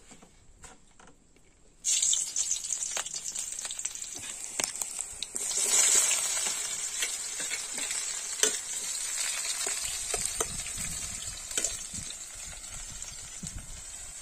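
Sliced onions and green chillies hitting hot oil in a metal kadai: a sudden loud sizzle about two seconds in, then steady frying as they are stirred with a ladle, with occasional taps of the ladle against the pan.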